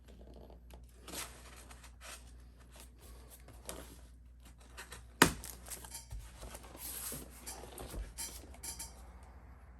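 A cardboard shipping box being opened and its packing handled: scattered rustling, scraping and small clicks, with one sharp knock about five seconds in.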